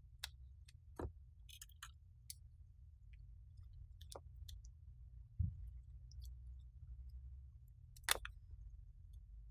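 Faint, scattered clicks and taps of hand tools against a power-supply circuit board while a coil is being desoldered, over a low steady hum. A duller knock comes about five seconds in and a sharper click near the end.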